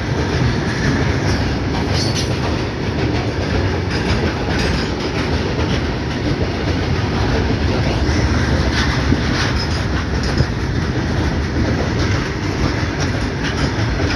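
A freight train's wagons rolling past at close range: a steady, loud rumble of steel wheels on rail, broken by irregular clacks from the wheels.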